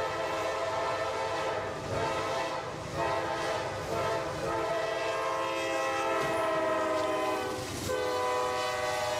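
Norfolk Southern diesel locomotive's multi-chime air horn sounding in long held blasts, with short breaks about two and three seconds in and again near the end. The train's running rumble lies underneath.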